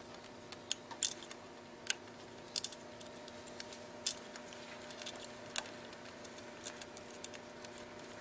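Scattered small clicks and light taps as hands handle the wires and mounting hardware at the end of a fluorescent ballast in a metal T5 light fixture, over a faint steady hum.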